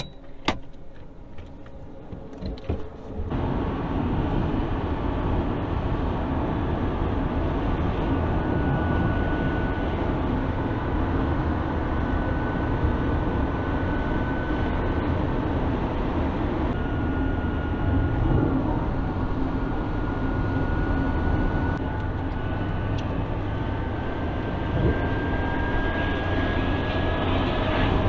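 A few clicks in the first seconds, then from about three seconds in a car's steady engine and road noise heard from inside the cabin while driving, with a faint whine that slowly rises in pitch.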